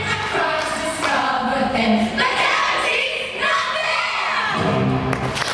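A recorded song with sung vocals over instrumental accompaniment, played as backing music for a trapeze act.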